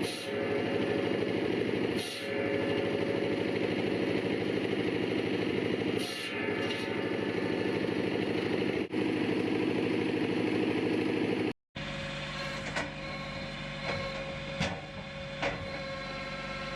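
Engine of a homemade hydraulic log splitter running steadily, with a few brief dips. About two-thirds of the way in it stops abruptly, and a quieter steady machine hum with a few sharp knocks follows.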